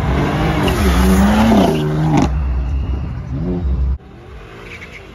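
Car engine revving hard, its pitch dipping and then climbing over about two seconds with a loud rushing exhaust noise over it, followed by a second, shorter rev. The sound drops away abruptly about four seconds in.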